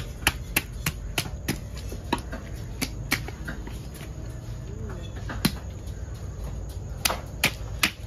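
Knife scaling a parrotfish on a wooden block: a run of sharp clicks and snaps as the blade scrapes off the large scales, a few a second, with a sparser stretch in the middle.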